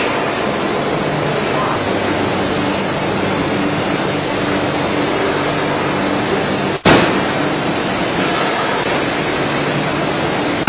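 Veneer splicer machine running: a steady, loud mechanical noise with a low hum under it, broken by a brief dropout and click about seven seconds in.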